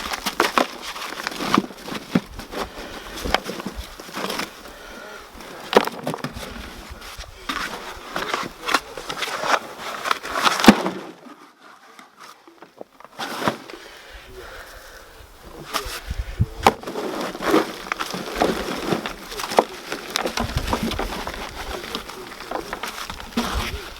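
Gloved hands digging through dry compost in a plastic potato container, with irregular crackling, rustling and knocks. About halfway through the sound drops away for a couple of seconds.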